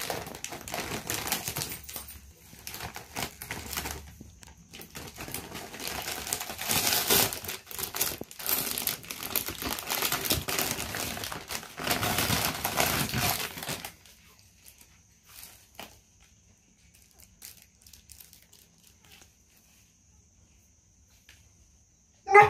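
Cellophane gift wrap crinkling and rustling as it is untied and pulled off a basket by hand, for about fourteen seconds, then only faint rustles and small clicks. A dog barks once at the very end.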